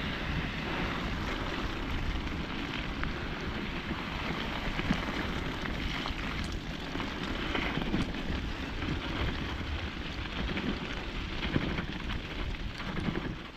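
Bicycle riding along a wet, snowy forest track: a steady rushing of wind on the microphone and tyres rolling, with a low rumble and a few small clicks.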